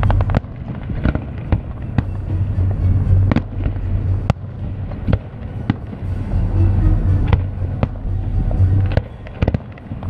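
Aerial fireworks shells bursting in an irregular string of sharp bangs, about two a second, over music with a pulsing bass playing from a radio.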